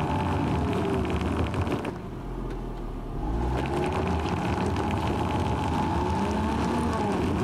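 2020 Land Rover Defender's engine revving in low range as the stuck SUV skids with all its wheels on rock. The revs rise and fall, easing off about two seconds in and picking up again a second later, with a rattling clatter early on. Pumping the gas does not free the vehicle.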